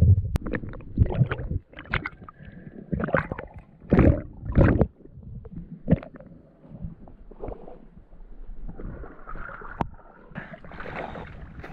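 Water sloshing and bumping around a camera held underwater, with several loud surges in the first few seconds, then splashing and lapping water as it comes up to the surface near the end.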